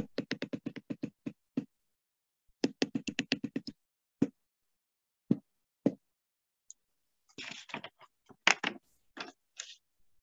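A person's voice in two quick runs of short, evenly spaced sounds, about eight a second, then a few single ones, with breathy, hissy sounds near the end.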